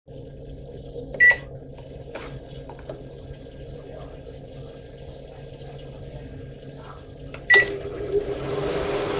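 Microwave oven beeping twice, about a second in and again about seven and a half seconds in. After the second beep the oven starts running with a steady hum that gets louder near the end.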